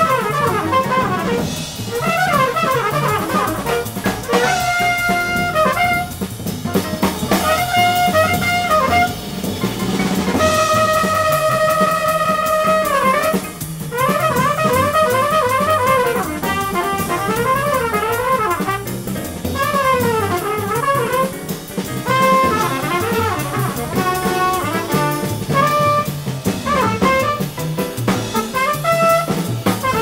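Trumpet playing a fast jazz solo over drum kit and band accompaniment: quick runs of notes rising and falling, with one long held note lasting nearly three seconds about a third of the way through.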